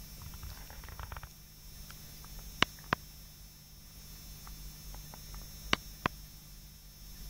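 Steady low hum typical of an aquarium filter or pump, with pairs of sharp clicks, the two about a third of a second apart, coming twice, and faint crackling in the first second.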